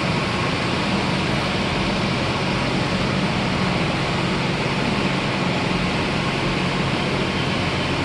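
Wind blowing steadily across the microphone as an even, unbroken noise.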